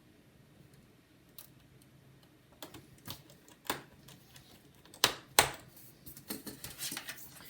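Scattered light clicks and taps from hands handling a laptop and small tools, with two sharper knocks about five seconds in and a quicker run of light clicks near the end.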